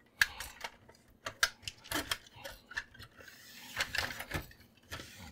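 Scattered clicks, taps and light knocks of a plastic inkjet printer mechanism and case being handled and tilted, with a brief rubbing scrape about three seconds in.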